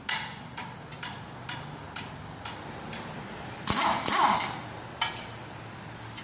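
Hand tools working on a truck's front suspension ball joint: sharp metallic taps about twice a second, with a louder rattling clatter about two-thirds of the way through.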